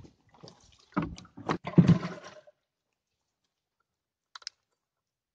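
Knocks and scraping as things shift about inside a small wooden boat, several sharp bumps in the first two seconds. This stops abruptly, leaving silence broken only by one short click near the end.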